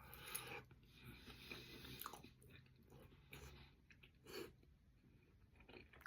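Faint chewing of a mouthful of steak pie: soft, irregular mouth sounds with a few small clicks.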